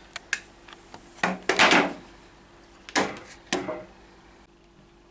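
Workshop clamps being loosened and taken off timber: a few knocks, then a longer scrape and clatter of the clamp against the wood about a second and a half in, and two more knocks around three seconds in. It goes quiet for the last half second.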